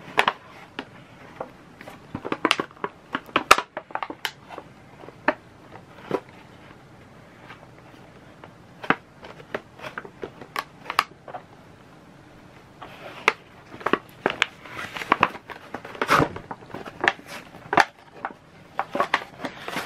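Hands handling packaging and small parts while unboxing: irregular clicks, taps and crinkling, busier with rustling about two-thirds of the way through.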